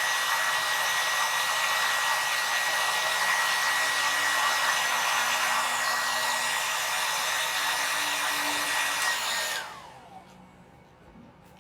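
Handheld hair dryer blowing steadily with a high whine, switched off near the end, its whine dropping in pitch as it winds down.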